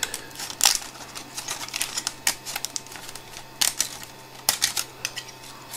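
Thin 3D-printed plastic part and its skirt being handled and flexed in the hands, giving a string of irregular sharp clicks and crackles.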